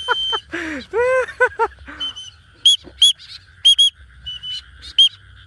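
Birds calling: a run of lower, arching calls in the first two seconds, then short, sharp high chirps, some in quick pairs. A steady frog chorus runs underneath.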